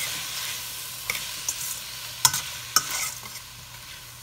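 Sliced bell peppers and onions sizzling in a metal pan while being stirred, with several sharp knocks of the utensil against the pan. The sizzle slowly fades.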